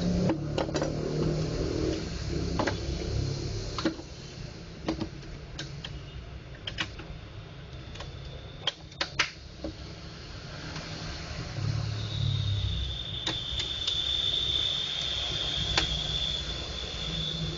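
Scattered clicks and knocks of plastic parts being handled and fitted back together on a laser printer imaging drum unit, over a steady low hum. A steady high-pitched whine comes in about two-thirds of the way through.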